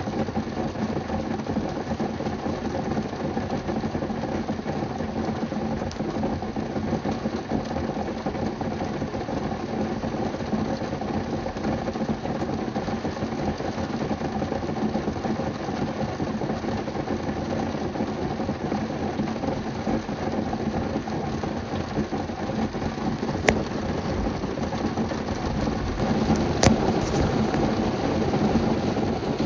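Heavy rain drumming steadily on a car's roof and windows, heard from inside the car. Two sharp ticks come near the end, the second the loudest, with a brief swell in the rain.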